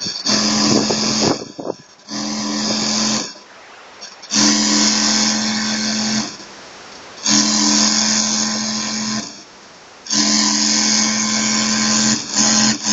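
Industrial sewing machine running at speed in six short runs of one to two seconds each, with brief pauses between them. Each run is a steady hum with a hissing whir over it.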